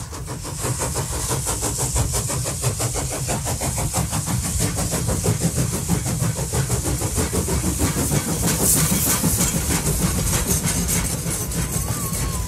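A running engine with a rapid, steady, even pulse and a hiss above it.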